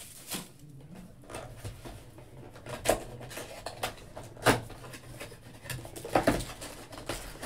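Cardboard trading-card box being handled and opened by hand: scraping and rubbing of the flaps with a few sharp taps and knocks, the loudest about four and a half seconds in.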